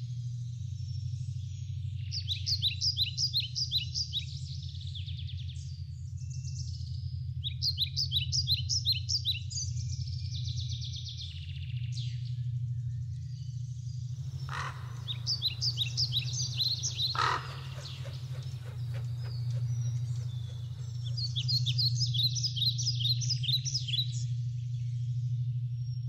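Birds chirping in short, quick trilled phrases that come back every few seconds, over a steady low hum.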